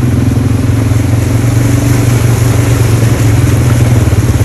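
ATV engine running close by at a steady, loud pitch as the quad is ridden along.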